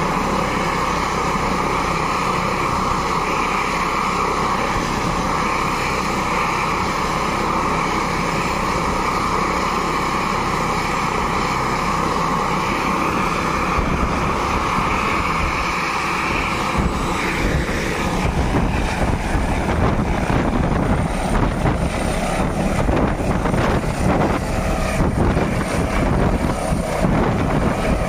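Airbus H145 helicopter running on the ground with its rotors turning: a steady turbine whine. About seventeen seconds in, the whine gives way to a louder, pulsing rotor chop and rushing wash as the helicopter powers up. It lifts off near the end.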